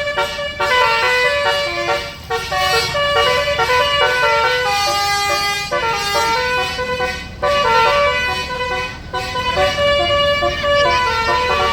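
Bus basuri musical air horn playing a tune: a quick run of stepped, held notes, often several sounding together, over a low rumble.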